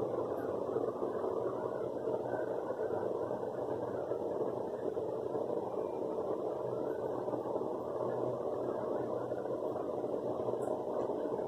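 A steady, even mechanical hum.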